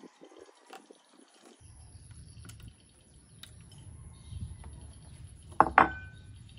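Raw eggs slipping from a bowl into an aluminium baking tray, with small wet clicks. Near the end come two sharp knocks against the tray, the second leaving a short metallic ring.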